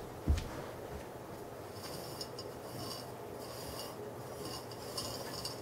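Small upturned pots being slid and shuffled on a carpeted floor, heard as several brief scraping rubs, after a low thump just after the start.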